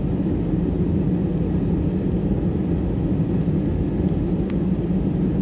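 Airbus A320 cabin noise heard from a window seat: a steady low rumble with a hum from the engines idling while the jet holds on the runway before the takeoff roll.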